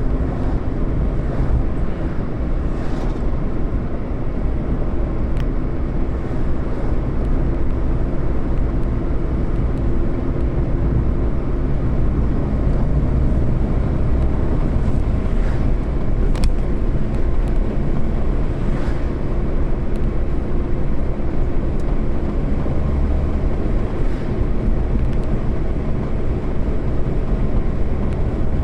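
A road vehicle in motion: steady engine and road rumble with a faint hum, unbroken throughout.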